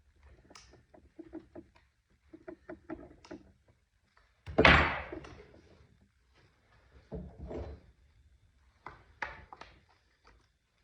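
Clicks and rattles of hand work on a chainsaw's bar and chain. One loud knock comes about four and a half seconds in.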